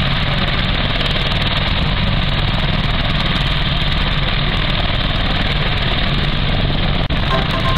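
Westland Apache AH1 helicopter running on the ground, its twin Rolls-Royce Turbomeca RTM322 turboshaft engines and turning main rotor making a loud, steady turbine and rotor noise.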